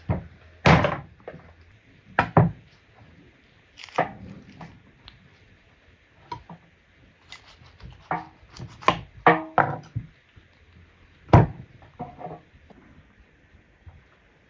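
A large knife chopping into cow's feet on a wooden cutting board: an irregular string of sharp knocks on wood, the loudest about eleven seconds in.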